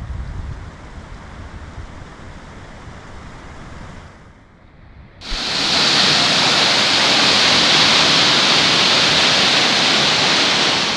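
Wind rumble and faint rushing water, then a sudden cut about five seconds in to the loud, steady rush of a waterfall.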